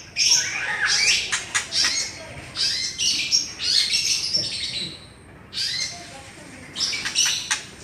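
Murai songbird singing: quick phrases of varied high whistles and chirps, pausing about five seconds in, then a last burst near the end.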